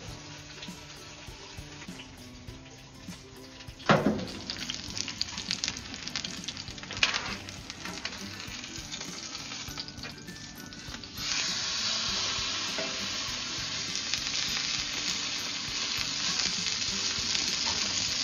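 Rack of lamb sizzling on a hot cast-iron griddle plate in a gas grill. There is a knock about four seconds in as the grill lid is opened and another near seven seconds. From about eleven seconds the sizzling turns loud and steady as the meat is turned onto a fresh side with tongs.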